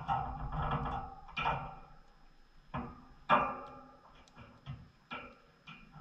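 A series of sharp knocks and clatters, several with a short ringing tail, irregularly spaced; the loudest comes about three seconds in.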